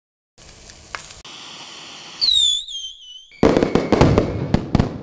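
Firework rocket sound effect: a hissing launch, then a whistle that slides down in pitch and wobbles, then a loud crackling burst of many sharp cracks.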